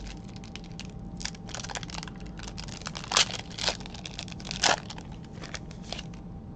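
Foil wrapper of a Select baseball card pack crinkling and tearing as it is handled and opened, a dense run of crackles with three louder ones around the middle.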